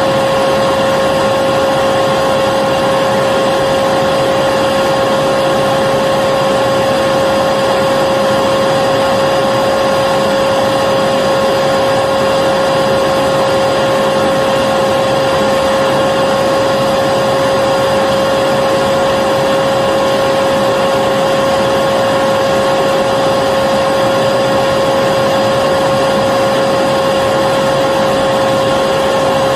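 Vacuum cleaner running steadily: a constant motor whine over an even rushing noise, with no change in pitch or level.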